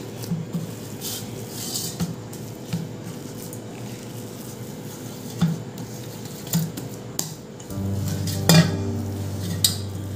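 Hands kneading dough in a stainless steel bowl, the bowl clinking and knocking with scattered short knocks. Background music comes in about three-quarters of the way through.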